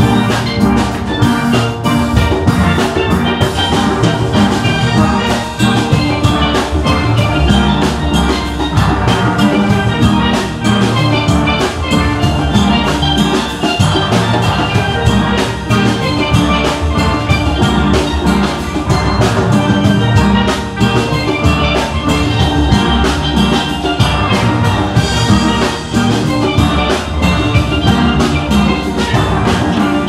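Steel band playing a piece on steelpans: many pans struck together in quick, ringing notes over a steady beat.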